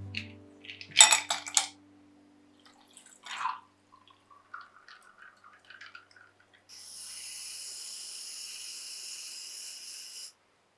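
Ice cubes clattering into a glass, then milk poured in with a trickle that rises slightly in pitch as the glass fills, followed by a can of whipped cream hissing steadily for about three and a half seconds before cutting off.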